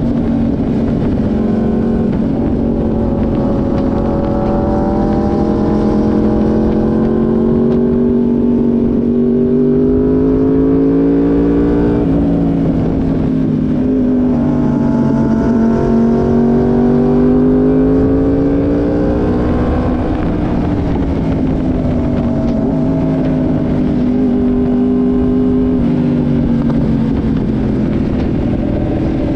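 Yamaha YZF-R1M's crossplane inline-four engine under load on track, its note climbing steadily through the revs, dropping sharply about twelve seconds in at a gear change, climbing again, then falling as the bike slows, over steady wind rush.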